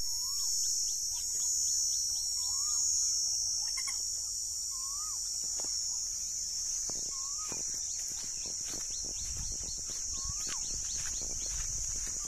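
A steady high-pitched insect drone, with a bird repeating a short up-and-down whistle about every two and a half seconds and quick chirps from other birds.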